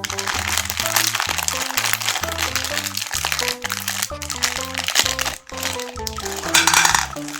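M&M candies crunching and crackling as their hard sugar shells are crushed in a meat grinder, over background music.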